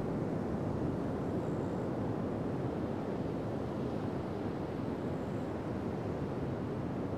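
Ocean surf breaking on a long sandy Pacific beach: a steady, low wash of waves with no single break standing out.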